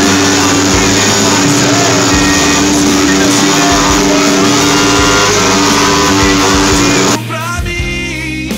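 Loud, distorted roar of many motorcycles running together at a gathering, with a steady held tone and some shouting. About seven seconds in it cuts abruptly to rock music with guitar and singing.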